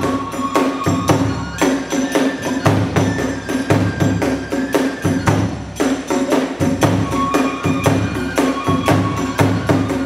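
Kagura festival music: a bamboo flute holding and shifting high notes over a fast, even beat of drum strokes and clashing hand cymbals.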